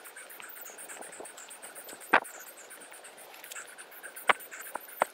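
Insects chirping steadily, a high rapid pulsing, with a few sharp knocks of footsteps on the trail, the loudest about two seconds in and just after four seconds.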